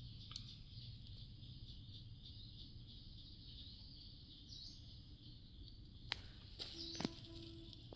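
Faint outdoor rural ambience: a steady high-pitched chorus of insects over a low hum, with a few sharp clicks near the end.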